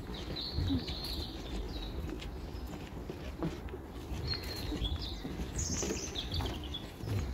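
Several small birds chirping in short, scattered calls over a steady low rumble.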